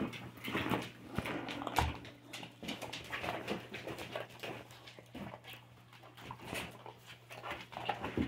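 Several dogs crowding and moving about close by, making irregular clicks and rustles, with a short, sharp knock about two seconds in.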